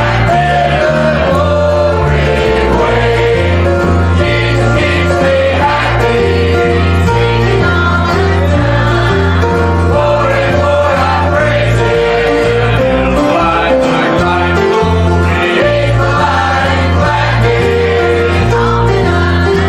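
Church music: a choir singing with instrumental accompaniment, a steady bass line changing notes about once a second under sustained chords.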